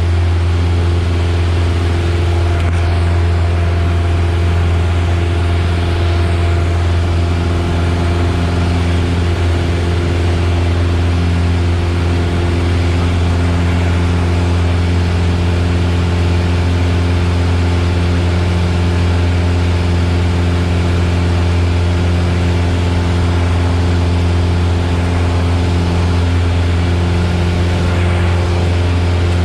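Piper Warrior's four-cylinder Lycoming engine and propeller droning steadily inside the cabin, a constant low hum with an even rush of air noise over it.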